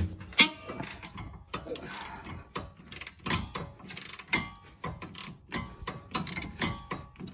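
Half-inch-drive 90-tooth GearWrench flex-head ratchet being worked back and forth on a corroded sway bar end link nut, its pawl clicking in short repeated strokes.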